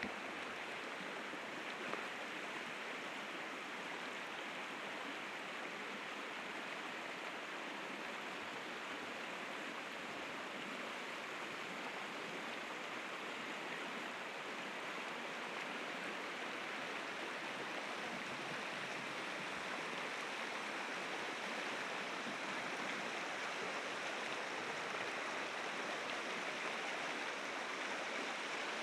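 River rapids rushing steadily, a constant broad sound of flowing water that grows slightly louder near the end. A single faint click about two seconds in.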